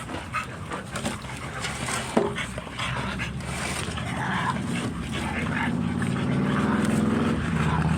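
Dogs panting and whimpering amid scuffling clicks, with one sharp knock about two seconds in. From about five seconds in, a low engine drone grows steadily louder.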